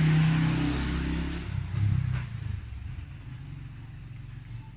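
A passing motor vehicle's engine, loudest at the start and fading away over the next few seconds.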